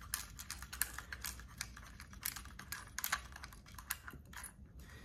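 Light, irregular clicks and taps of fingers handling a small plastic housing while the mounting nut of a panel-mount push button is unscrewed by hand.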